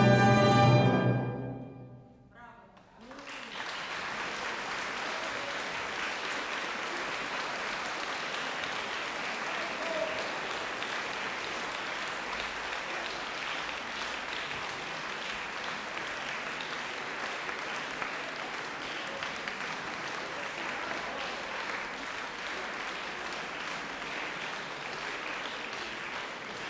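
An orchestra's final chord, held for about a second and then dying away, followed after a brief hush by audience applause that goes on steadily.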